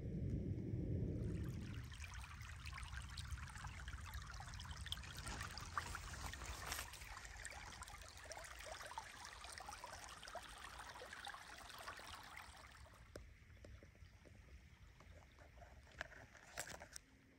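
Shallow forest stream trickling over a stony bed, a faint fine hiss that comes in about two seconds in and fades away after about thirteen seconds. A low rumble fills the first two seconds, and a few sharp clicks come near the end.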